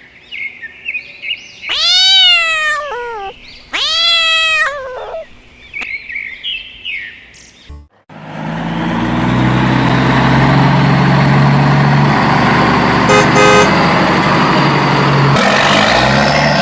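High chirping calls and two long calls that rise and then fall. About eight seconds in, a vehicle engine starts and keeps running steadily and loudly, with a short run of ticks near the middle.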